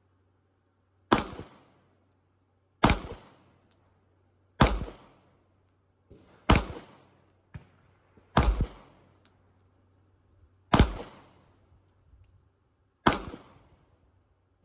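Seven single shots from a PSA Dagger 9mm pistol, fired slowly and evenly about every two seconds, each a sharp crack with a short echoing tail.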